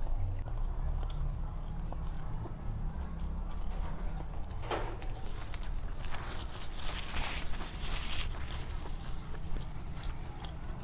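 Mukbang eating sounds: chewing and clicks of a spoon and hands on food, busiest in the middle of the stretch. A steady high-pitched whine runs underneath and steps up slightly in pitch about half a second in.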